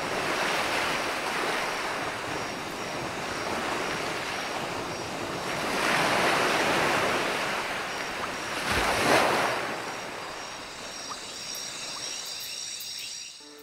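Waves washing onto a shore: a continuous wash of surf that swells about six seconds in and again near nine seconds, then eases off toward the end.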